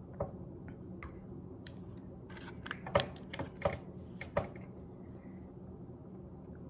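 Scattered light clicks and taps of dishes being handled at a breakfast table, a quick cluster of them about halfway through.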